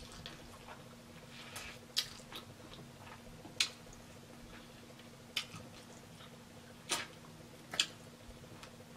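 A person chewing hot buffalo chicken wings: quiet mouth sounds with sharp smacks or crunches every second or two.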